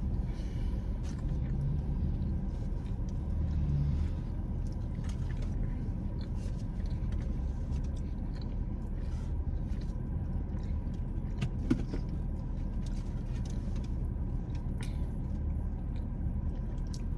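Steady low rumble of a car's cabin, with a few faint clicks and taps from eating mac and cheese with a fork.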